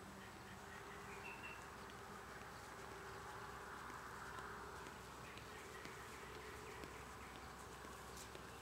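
Faint buzzing of a flying insect, a steady thin hum over quiet outdoor background that swells slightly around the middle.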